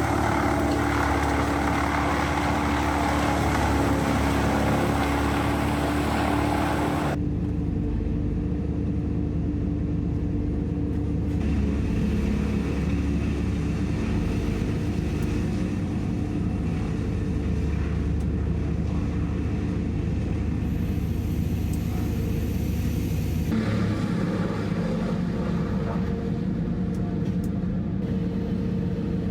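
Diesel engine of a Merlo rotating telehandler crane running steadily, with a constant low hum. The higher noise drops away abruptly about seven seconds in and the sound shifts again near the end.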